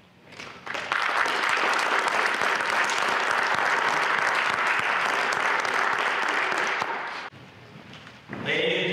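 Audience applauding for about six seconds, then dying away.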